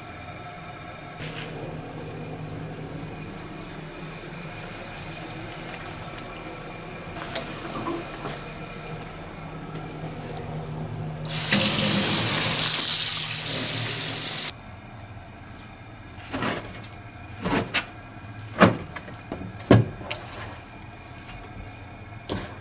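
Water pouring into a stainless-steel sink for about three seconds as wakame seaweed and water are tipped from a pot into a plastic colander under the running tap. Before it a steady hum with a few light clicks; after it several sharp knocks and clinks of a bowl and utensils being handled.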